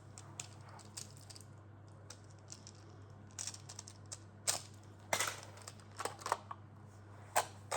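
Plastic magnetic building tiles clicking and clacking as they are handled and snapped together: scattered irregular clicks, a few sharper clacks from about four and a half seconds in.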